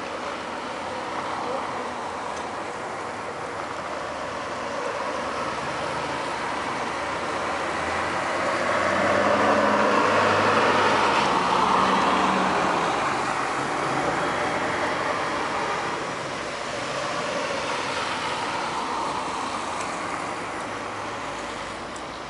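A motor vehicle passes along the road, its engine and tyre noise swelling to a peak about ten seconds in and then fading, over a steady background hiss of traffic.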